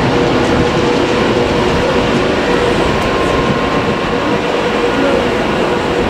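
A train running, a steady loud rumble with faint steady tones over it.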